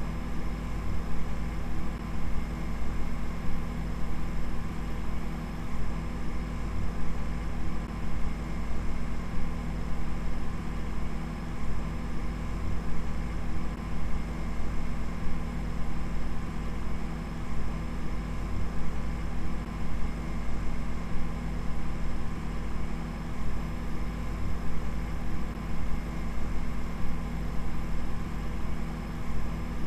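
A steady low droning hum with a layer of hiss, unchanging throughout, with many steady tones stacked over a strong low rumble.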